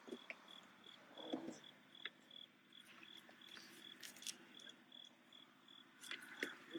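Faint crickets chirping steadily in a high, even pulse of about three chirps a second, with a few soft knocks and rustles of handling.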